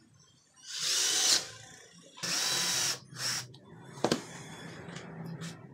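Cordless drill-driver running in two short bursts, driving screws into laminated board, followed by briefer spurts and a sharp knock about four seconds in.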